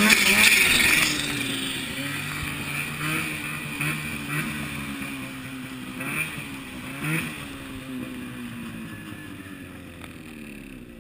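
Ski-Doo XM snowmobile's two-stroke engine, pulling hard for about the first second, then off the throttle and slowing, with a few short revs as it coasts down toward idle.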